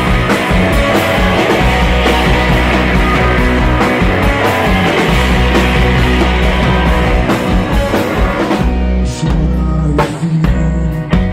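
Live rock band playing loudly, with drum kit and guitar. About eight and a half seconds in, the cymbal wash drops away and the playing turns sparser, with separate hits.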